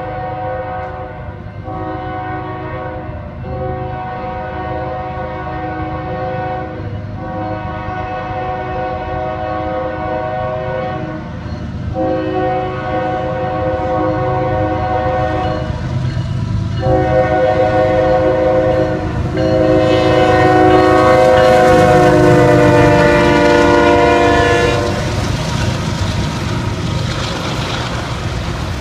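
Diesel locomotive air horn blowing a chord in a series of long blasts with short breaks, growing louder as the train approaches, then dropping in pitch and stopping as it passes. Afterwards the rumble and clatter of passing freight cars.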